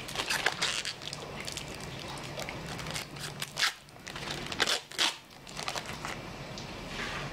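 Thin clear plastic bag crinkling and rustling as a remote control is pulled out of it, in irregular crackles with a few louder ones about midway.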